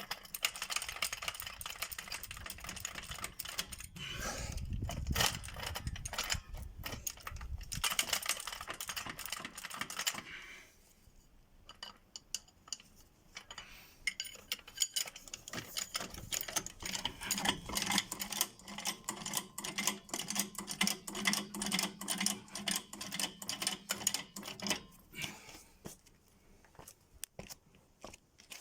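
Rapid metallic ratchet clicking in long runs, with a quieter gap about a third of the way in, as wheel nuts are worked off or the car is raised on a jack.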